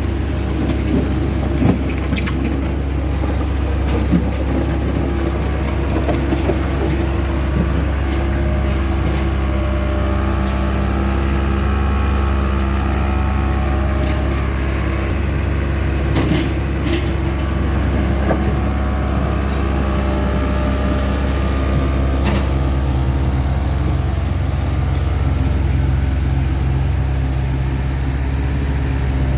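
CASE skid steer loader's diesel engine running steadily under work, with scattered sharp clanks and knocks.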